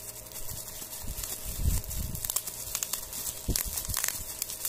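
Plastic bubble wrap crinkling and rustling as it is handled and pulled apart by hand, with irregular crackles and a few low bumps.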